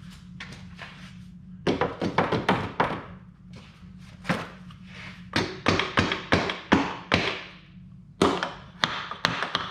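Sharp taps and knocks in quick, irregular runs, with a steady low hum underneath.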